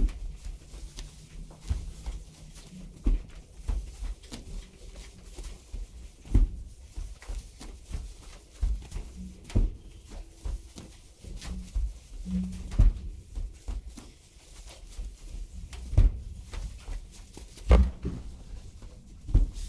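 Irregular dull thumps and knocks, one every second or two, over a steady low rumble.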